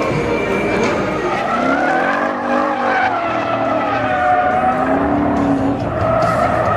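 Ford Mustang drifting: the engine revs up and down, its pitch rising and falling a couple of times, while the rear tyres skid and squeal.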